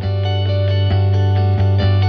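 Instrumental music: plucked notes struck about every half second over a steady, held low note.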